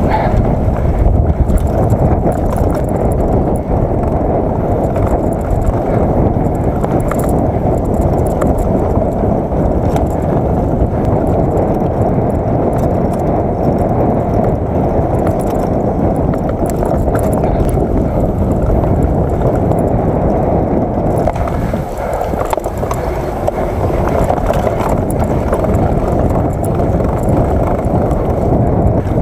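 Mountain bike descending a dirt singletrack, heard through an action camera's microphone: a steady, loud, rough rumble of wind and tyres on the trail, with scattered rattles and knocks from the bike.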